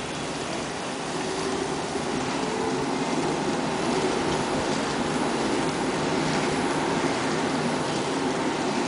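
KK-2315 semi-automatic pallet stretch wrapping machine running: its turntable turns the loaded pallet while the film carriage feeds prestretched film, a steady mechanical running noise that grows slightly louder over the first second or two, then holds.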